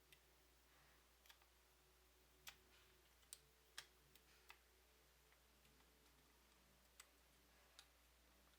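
Faint, irregular clicks and taps, about eight in all, of small tools and metal parts handled while a Nikon FM2n film camera is taken apart at its shutter.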